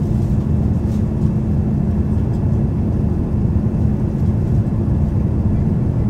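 Cabin noise of a Boeing 787-9 airliner on approach: a steady low drone of its General Electric GEnx engines and rushing air, with a constant hum under it.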